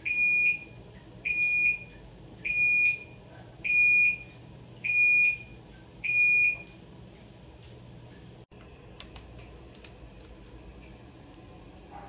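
Panasonic NA-FD85X1 top-load washing machine's end-of-cycle signal: six identical high beeps, each about half a second long and a little over a second apart, announcing that the wash is done. A few faint clicks follow later.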